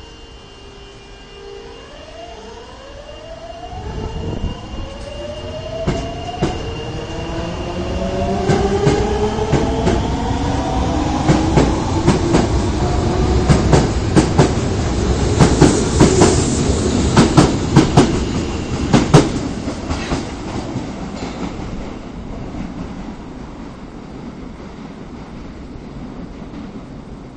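Osaka subway 22 series electric train pulling away from the platform. The traction motors' whine climbs in several rising tones as it gathers speed, while the wheels click over rail joints, faster and louder. The sound is loudest a little past the middle, then fades as the train runs off.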